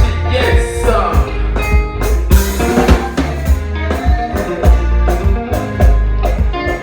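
Live band playing during a sound check: drum kit with a steady kick-drum beat, a heavy bass line and melodic instruments, with a voice singing in places.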